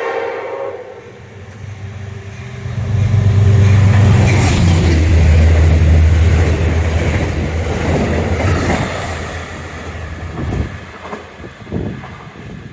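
Amtrak Ethan Allen Express passing through the station at speed without stopping. Its horn trails off in the first second, then the locomotive's low rumble and the rushing of the train swell to a loud peak in the middle and ease away. Wheel clacks sound near the end.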